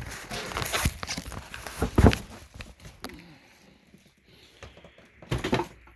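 Handling noise from flipping a boxed battery over in its packing: rustling and a series of knocks, the loudest thump about two seconds in, then quieter.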